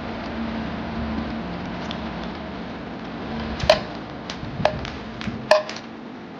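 A few sharp clinks of kitchen utensils or dishes, three of them loud with a brief ring, over a low steady hum.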